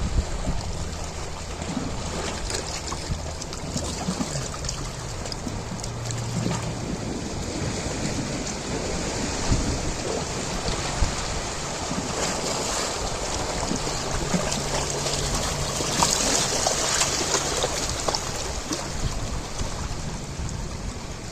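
Ocean waves washing in, a steady rush of surf that swells briefly louder about three-quarters of the way through.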